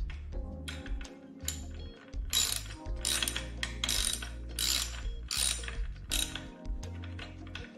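Hand ratchet wrench clicking in repeated short strokes, roughly one to two a second, as it turns a nut at the scooter's front wheel hub.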